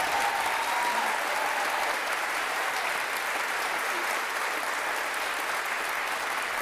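A theatre audience applauding, steady clapping that eases off slightly near the end.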